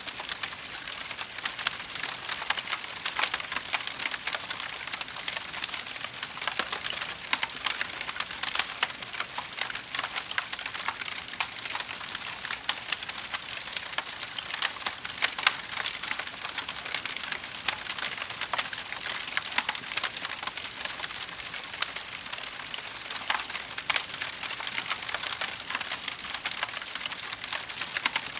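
Fire crackling: a steady hiss filled with many small, quick pops and snaps.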